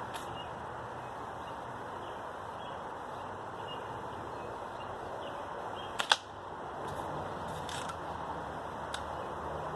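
A BB gun firing once: a short sharp crack about six seconds in, over a steady background hiss.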